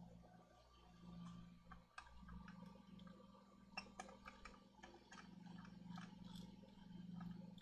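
Faint, irregular small clicks and ticks, starting about two seconds in, over a low hum.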